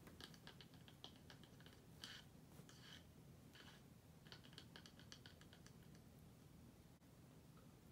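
Faint, irregular clicks and light taps on a plastic cup held up close, done as ASMR, coming in small clusters.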